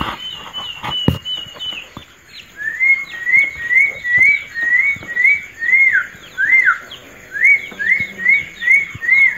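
A bird whistling a long series of short repeated notes, about two a second. The run pauses about two seconds in, then resumes at a lower pitch, each note rising and dropping, with a couple of longer downward-sliding notes midway.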